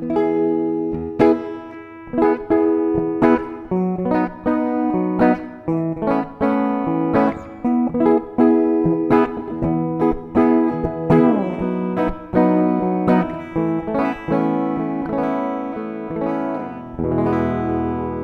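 Clean guitar played through a DigiTech Polara reverb pedal in stereo. Picked notes and chords come about once a second, each ringing on into a reverb tail, with a strummed chord near the end.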